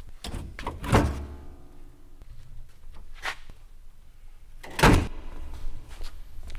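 Two heavy impacts about four seconds apart, over a low rumble; the first is followed by a ringing tone that fades over about a second.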